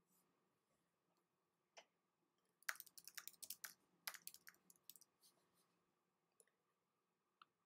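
Faint typing on a computer keyboard: a quick run of about a dozen keystrokes starting near three seconds in, with a few single clicks before and after it.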